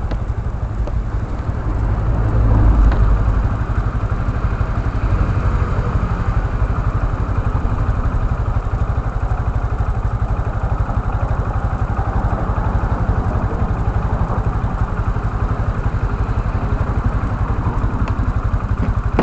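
Motorcycle engine running steadily on the road, rising briefly about two to three seconds in.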